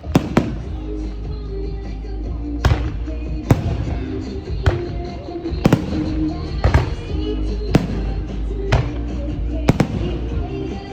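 Fireworks going off in sharp bangs, about one a second, over loud music with a steady bass.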